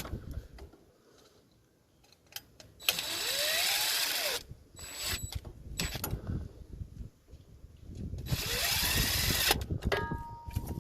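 Cordless drill/driver running screws in twice, each run lasting a second or so, with its whine rising and then falling. In between there are clicks and handling noises.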